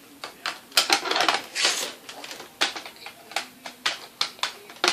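Hard plastic toy parts being handled: a run of irregular sharp clicks and clatters, busiest about a second in.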